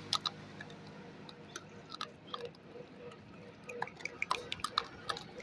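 Gray langur chewing food right at the microphone: irregular small crunching clicks.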